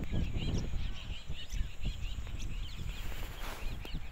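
Birds chirping over and over, several short, high, arching chirps a second, over a low rumble.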